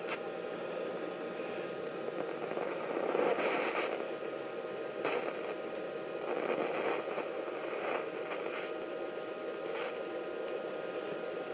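TIG welding arc from an Everlast 140 ST inverter welder, a steady crackling hiss with a faint steady whine, swelling louder briefly about three to four seconds in.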